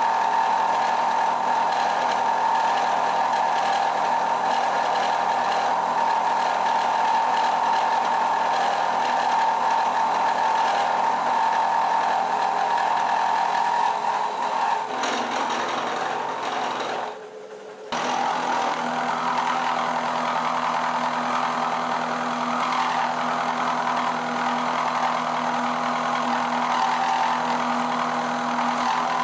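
Vertical milling machine face-milling a metal block: the spindle and cutter run with a steady machining din and a high steady tone. About fifteen seconds in the sound fades and drops out briefly, then the cutting resumes with a deeper hum underneath.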